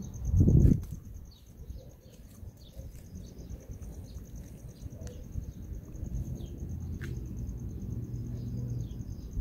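Crickets chirping in a steady, rapid pulse, with small birds chirping faintly now and then. A loud low thud about half a second in.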